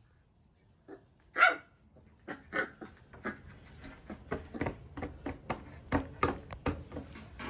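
Month-old Labrador puppy barking angrily. One loud bark comes about a second and a half in, then a quick run of shorter, quieter barks, two or three a second.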